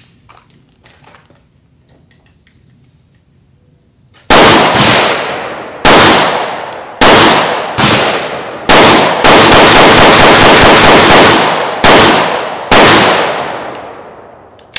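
Glock 19 9mm pistol firing Speer Gold Dot 115-grain rounds: after about four seconds of quiet, single shots roughly a second apart, then a fast string of shots, then more single shots, each one ringing out for a second or more. The pistol cycles every round without a stoppage, a function test of the carry ammunition.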